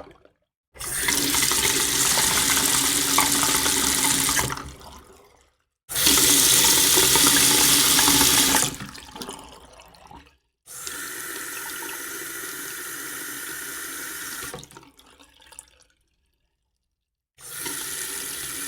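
Water running in a kitchen sink, in four separate stretches of a few seconds each with silence between them.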